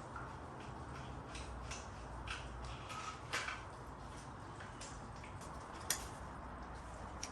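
Scattered light clicks and knocks of tools and engine parts being handled during an engine teardown, with two sharper taps about three and a half and six seconds in, over a low steady hum.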